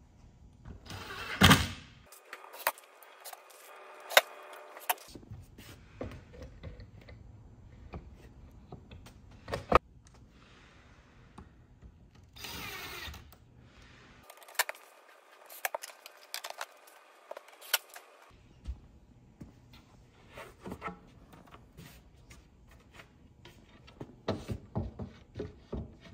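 Cabinet assembly: a cordless drill driving screws in short runs, small metal clips clinking, and plywood panels knocking and scraping as they are fitted together.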